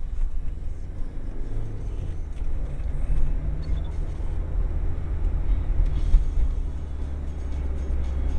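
Car engine and road noise heard from inside the moving car's cabin: a steady low rumble.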